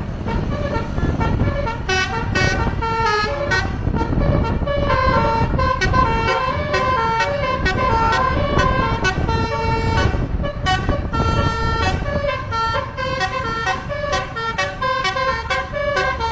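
Telolet basuri horn on a bus playing a fast melody of short, changing notes, over a steady low rumble underneath.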